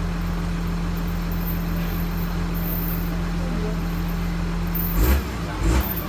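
A bulldozer's diesel engine idling steadily with an even low pulse. Near the end there are two brief, louder thuds.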